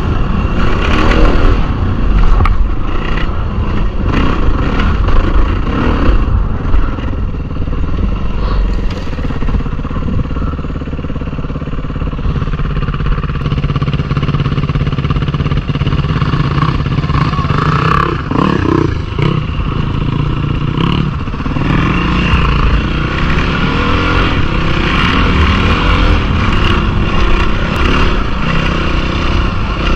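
Off-road dirt bike engine running under way on a rough dirt trail, its revs rising and falling as the rider works the throttle.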